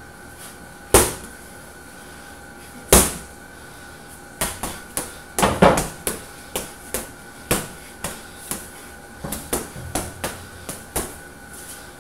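Boxing gloves punching a hanging heavy bag: two hard single punches about a second and three seconds in, then a fast run of about twenty punches lasting some six seconds.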